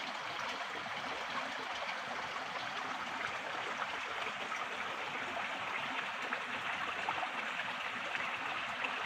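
Water from a mountain spring flowing steadily, an even rushing hiss with no breaks.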